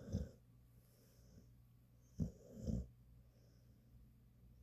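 A sleeping dog snoring loudly, much like a person. Each snore comes as two short pulses, one right at the start and another about two seconds in.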